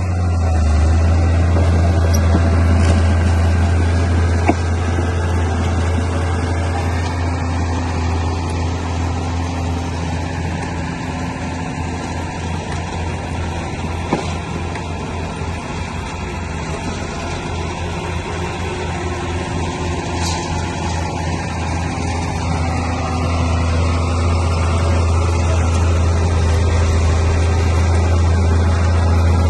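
Komatsu D31P bulldozer's diesel engine running steadily, its note strong for the first stretch, easing off through the middle and rising again near the end as the load on the blade changes.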